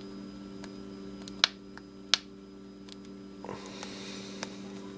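A tiny Torx screwdriver working the very tight case screws of a Garmin GPS, giving two sharp clicks about a second and a half and two seconds in and a few fainter ticks, over a steady electrical hum. A soft hiss comes in near the end.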